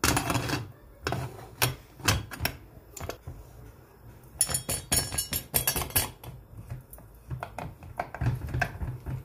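Pressure cooker lid being fitted and closed: a run of irregular metal clicks and clatters, thickest around the middle.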